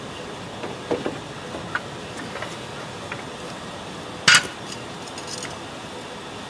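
Metal pieces being handled: a few light clinks and knocks, then one sharp, loud metallic clank a little over four seconds in.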